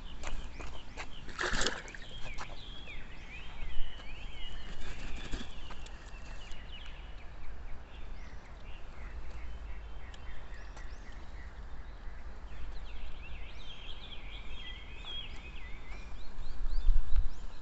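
Small birds twittering in quick, rapid phrases of short chirps, in two bouts: one from the start to about six seconds in and another from about thirteen to sixteen seconds. A low rumble of wind or handling noise runs under it, with a sharp knock about a second and a half in.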